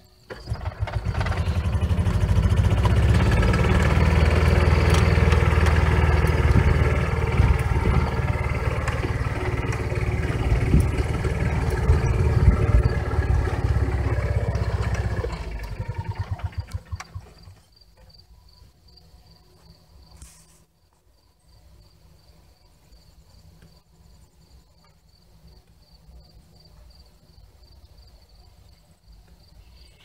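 A small petrol engine starts, runs steadily for about fifteen seconds, then is shut off and sputters down in slowing beats to a stop. A high, evenly pulsed chirping carries on after it.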